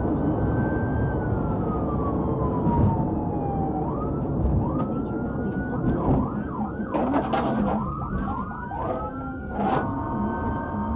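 Police cruiser siren: a slow wail rising and then falling over the first four seconds, then switching to rapid, repeated yelping sweeps, over steady engine and road rumble. Two sharp clicks sound about seven and ten seconds in.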